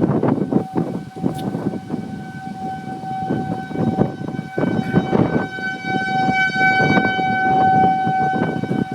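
Outdoor tornado warning siren sounding one steady tone that swells louder in the second half, with wind gusting on the microphone.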